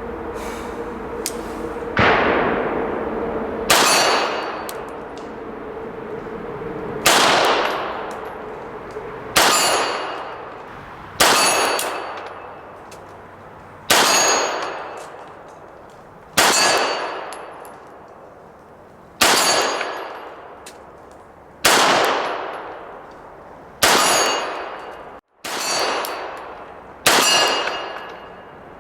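Slow, deliberate 9mm shots from a Sig Sauer P226 Legion single-action-only pistol, about a dozen, one every two to three seconds, each followed by a long ringing tail, with the clang of hits on 25-yard steel plates.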